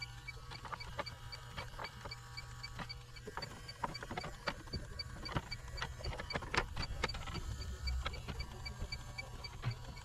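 Electronic refrigerant leak detector (Inficon D-TEK Stratus) beeping steadily several times a second while its probe is swept over an evaporator coil, with clicks and knocks of the probe and its hose against the coil and cabinet over a low hum.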